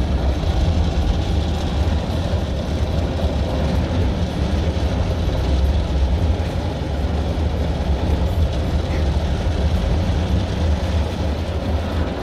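Rotating brushes of an automatic car wash scrubbing the wet rear window and bodywork, heard from inside the car as a steady low rumble with swishing water.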